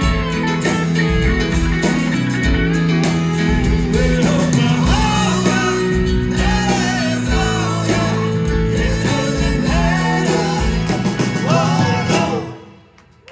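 Live rock band playing, with voices singing over acoustic and electric guitars, bass and drums. The music stops abruptly near the end, as the song finishes.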